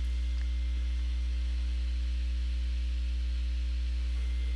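Steady electrical mains hum, a low drone with a buzz of evenly spaced overtones and a faint high whine, unchanging throughout.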